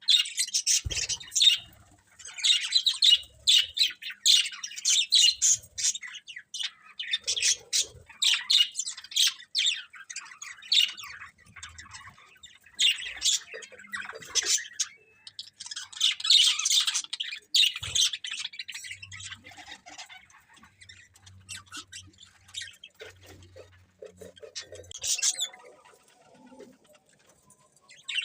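Budgerigars chirping and chattering in rapid runs of short, high calls that thin out and grow quieter after about eighteen seconds.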